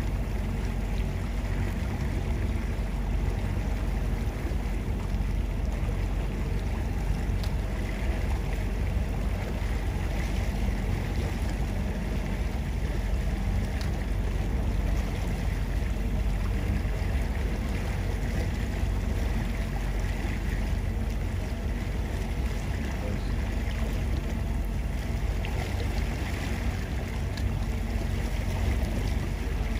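Steady low rumble of Sailing Yacht A's machinery as the giant yacht manoeuvres slowly under power in the harbour.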